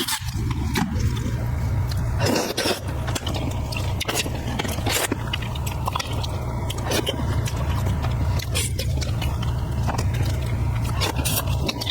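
A person chewing and biting food close to the microphone, with frequent short smacks and clicks, over a steady low rumble.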